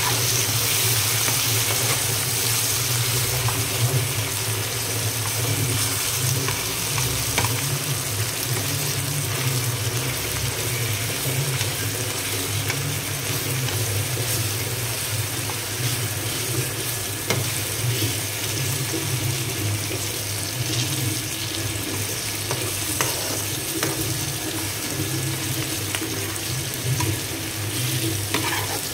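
Chopped onions, tomatoes and green chillies sizzling steadily in hot oil in a pan as the tomatoes cook down. A steel spoon stirring them gives an occasional scrape or tap.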